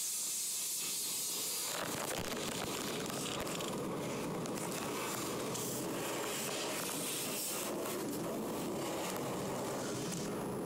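Automatic tunnel car wash heard from inside the car: a steady hiss of water spray on the car, growing fuller and lower about two seconds in.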